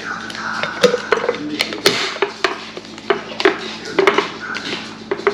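Kitchenware being handled: a string of sharp clinks and knocks, about ten over a few seconds.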